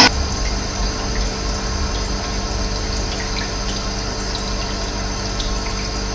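Running water, a steady rushing flow with a low rumble, and a few faint short high chirps here and there.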